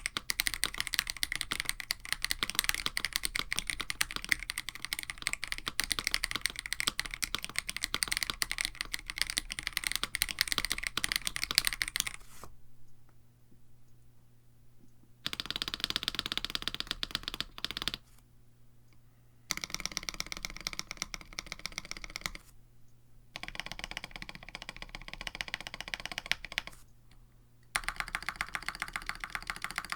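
Typing on a KBD67 Lite mechanical keyboard with an FR4 plate, Krytox 205g0-lubed Akko Radiant Red linear switches and GMK Striker clone keycaps. A fast, continuous run of keystrokes lasts about twelve seconds, then gives way to shorter bursts of typing separated by brief pauses.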